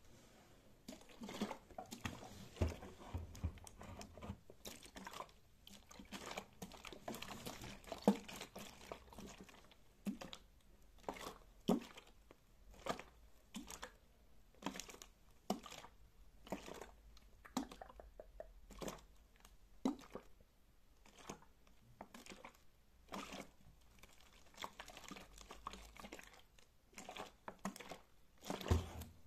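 Plastic water bottle, partly full, squeezed and handled close to the microphone: the thin plastic crackles and crinkles in many sharp, irregular clicks.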